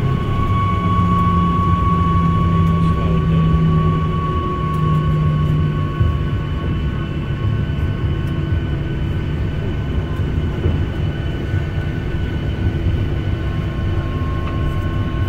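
Boeing 737-800 cabin noise: a steady low rumble from its CFM56-7B jet engines and airflow, with steady whining tones on top. A high whine fades about halfway through and returns near the end.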